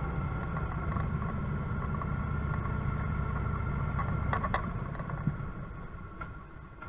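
1983 Harley-Davidson FLH Shovelhead's air-cooled V-twin, fitted with a Screamin' Eagle butterfly carburetor with a Thunderjet, running under way as a low, steady rumble. The sound gets quieter over the last couple of seconds.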